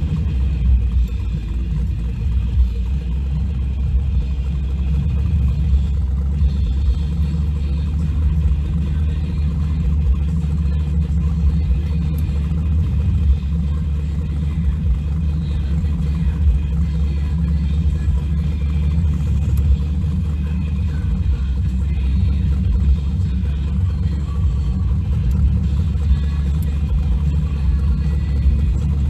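Engine of a 1500-horsepower Chevrolet S10 street truck running with a steady, deep rumble while the truck moves slowly, heard from inside the cab.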